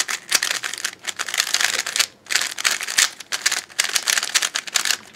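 GAN 356 Air SM magnetic 3x3 speed cube being turned fast by hand: a quick, continuous clicking clatter of plastic layers snapping into place, with a brief pause about two seconds in.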